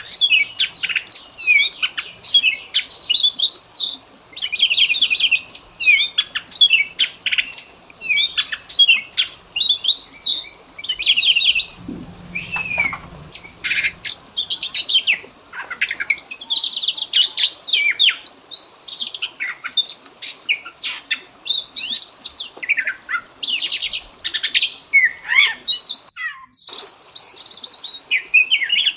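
Oriental magpie-robin (kacer) singing a fast, unbroken song of varied whistles, trills and chirps, packed with mimicked phrases of other birds' calls.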